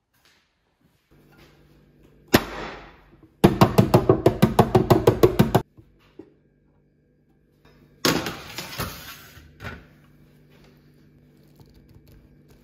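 Stainless steel pan turned upside down onto a wooden cutting board with a bang, then knocked rapidly, about eight knocks a second for two seconds, to loosen the chilled block of mac and cheese inside; another metal clank about eight seconds in.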